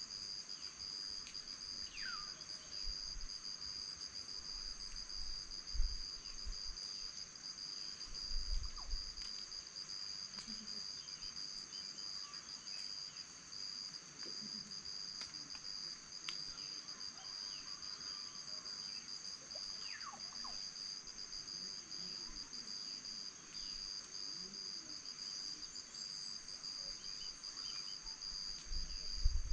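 Steady chorus of insects: a continuous high-pitched trill held on two pitches. A few brief low thumps break in, about six and eight and a half seconds in and again near the end.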